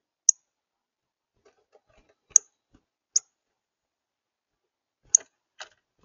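Northern cardinal giving short, sharp, high chip calls, four of them at irregular intervals, with a few faint clicks in between.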